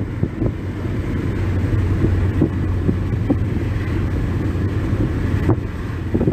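Steady low rumble of a moving vehicle, road and engine noise with a held low hum, mixed with wind noise and a few light knocks.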